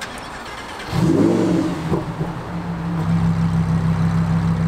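Lamborghini Huracan STO's naturally aspirated V10 starting up: about a second in it fires with a loud rising flare of revs, then settles within a couple of seconds into a steady idle.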